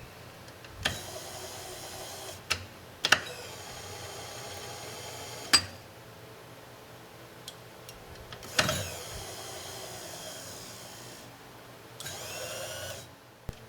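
Electric table power feed motor on a milling machine running in three spells, each switched on and off with a click; the first runs about five seconds, and the last and shortest is near the end.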